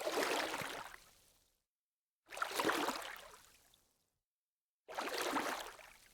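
Water splashing in three separate bursts, each loud at first and fading out over about a second and a half, with silence between them.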